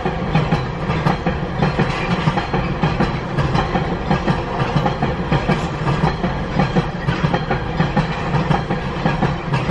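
Loaded log wagons of a timber train rolling past, their wheels clattering over the rail joints with a steady run of clacks and thumps.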